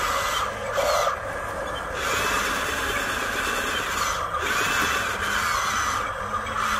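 Small electric motors and gearboxes of a radio-controlled excavator whining as it pivots on its tracks; the motor note changes in short runs.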